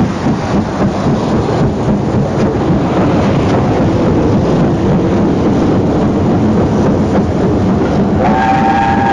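Train sound effect: a steady rumbling run. About a second before the end, a two-tone train horn begins to sound.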